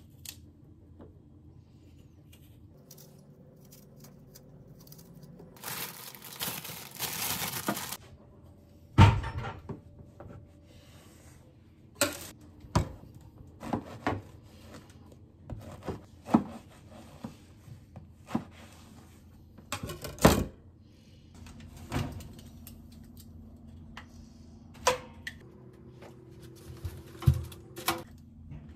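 Kitchen food prep with a knife on a plastic cutting board: a few seconds of hissy rustling, then a sharp thud about nine seconds in, followed by scattered knocks and clicks of the knife, board and utensils, and a few clinks of tongs at the toaster oven tray near the end.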